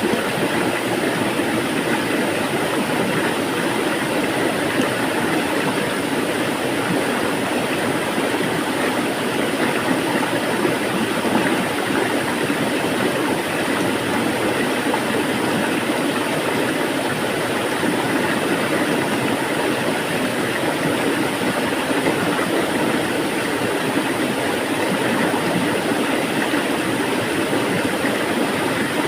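Flowing water rushing steadily, an even, unbroken noise with no pauses or changes.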